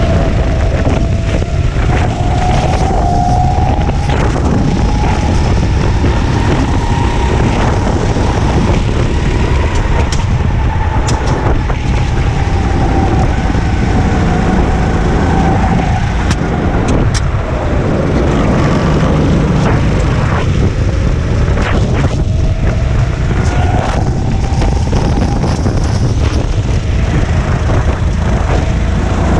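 Racing kart engine heard onboard at speed, its pitch rising and falling again and again with acceleration and braking through the corners, over a loud steady rumble.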